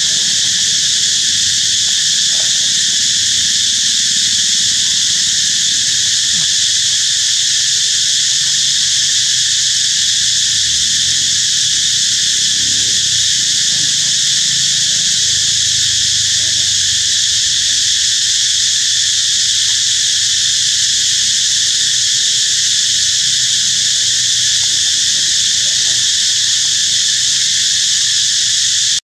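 A dense insect chorus buzzing loudly and steadily, without a break.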